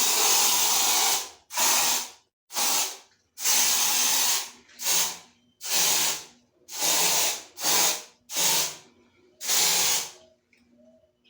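Aerosol air-freshener can (Bom Ar) sprayed in about ten hissing bursts, some short and some over a second long, with brief gaps between them.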